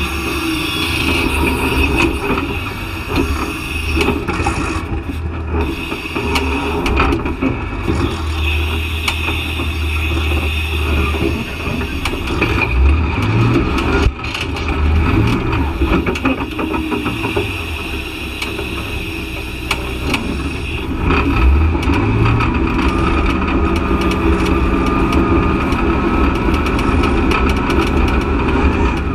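Off-road vehicle engine working a rocky hill climb, running steadily and revving up three times, about 12, 15 and 21 seconds in.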